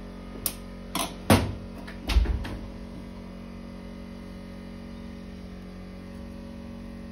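A few sharp metallic clicks and knocks as the solenoid terminals of a Same Minitauro 60 tractor starter motor are worked on by hand, the loudest about a second in and a duller thud near the middle, over a steady electrical hum.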